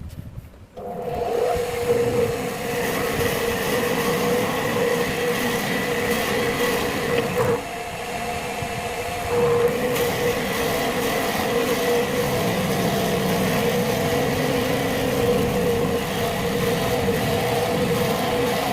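Wood lathe switched on about a second in and running steadily: a constant hum with a rough hiss over it, dipping briefly in the middle and then coming back louder.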